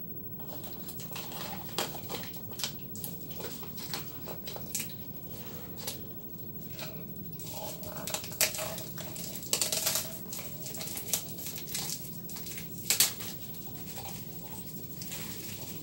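Crinkling and crackling of a thin clear plastic wrapper being torn and pulled off a stack of plastic cups. Irregular sharp crackles and clicks, busiest and loudest in the second half, with one loud snap near the end.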